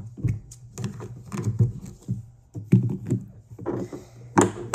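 Plastic Play-Doh toy tools being handled and set down on a tabletop: irregular light knocks and clicks.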